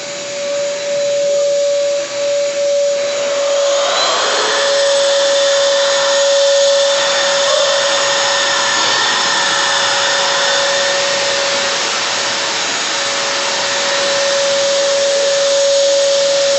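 Electric drywall sander with a hose to a dust-extraction vacuum, running steadily with a constant whine over a rushing hiss, used for dust-free sanding of a finish coat on a wall. About four seconds in, a brighter, hissier sanding sound joins and carries on.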